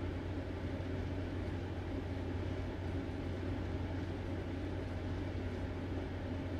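Steady low hum with an even background hiss: room tone, with no distinct sound events.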